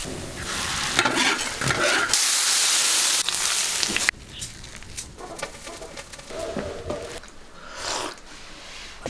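Wood-fired stove cooking sounds cut together: dry grass crackling as it catches fire, then a loud steady sizzle for about two seconds, then a spoon stirring a minced meat and scallion filling in an enamel bowl.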